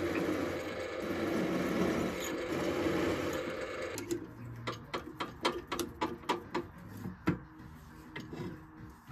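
Drill press running, its bit cutting through an aluminium plate, for about four seconds. Then a run of about ten sharp metallic clicks and taps, then quieter.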